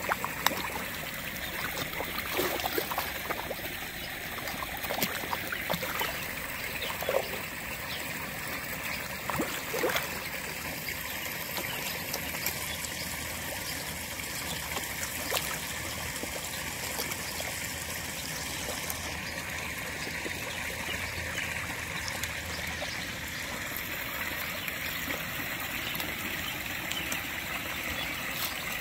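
Steady trickling pond water with scattered small splashes as koi feed at the surface, most of them in the first ten seconds.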